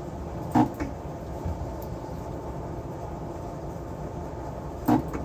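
Two short, sharp clacks of hard objects knocking on a workbench, about four seconds apart, over a steady low hum.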